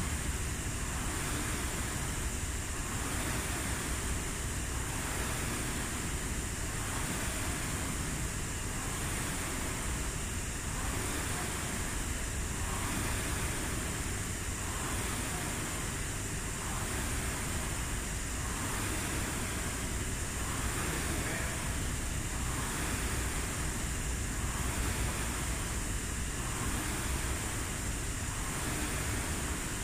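Air rowing machine in steady use: the fan flywheel whooshes, swelling with each pull, about one stroke every two seconds.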